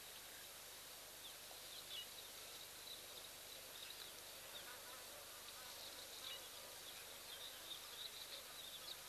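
Faint bush ambience at a waterhole: a steady soft hiss with scattered short, high chirps from small animals throughout.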